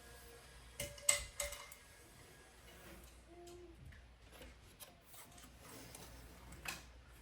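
Small clicks and taps of a screwdriver and small screws being handled and driven in by hand. There is a sharp click about a second in, another just after, and one more near the end.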